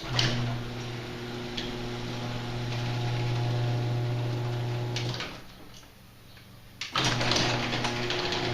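Electric garage door opener motor running with a steady hum as it drives the sectional door. It stops about five seconds in and starts up again near the end.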